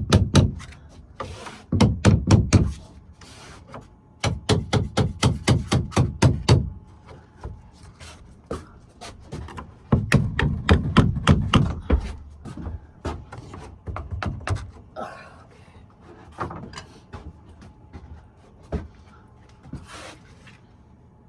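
Bursts of rapid knocking on wooden ceiling boards, about six knocks a second, several times over, with scattered single knocks in the second half.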